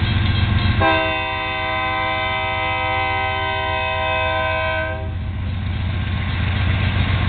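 Union Pacific diesel locomotive's multi-note air horn sounding one long, steady chord for about four seconds, starting about a second in and cutting off, as the warning for the grade crossing. The locomotive's engine rumbles low underneath.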